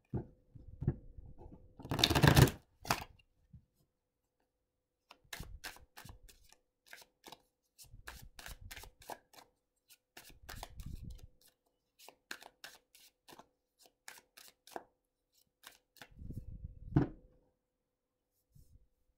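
Thoth tarot cards being shuffled by hand. A dense burst of card rustling comes about two seconds in, then a long run of quick card clicks and flicks, with one louder slap near the end.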